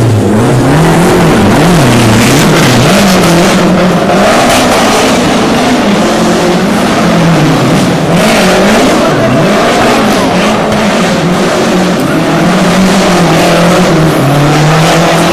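Lancia Delta Integrale rally car's turbocharged four-cylinder engine revving up and down over and over, its pitch rising and falling about once a second as the car is driven hard round the square, with tyre squeal.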